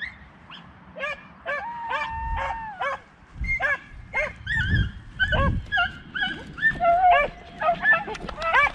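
Several beagles giving tongue in quick, high, overlapping yelps, a pack running a rabbit's scent through the brambles.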